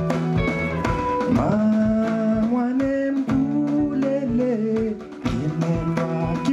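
Live band music: a singing voice holding long, gliding notes over guitar and a steady drum beat.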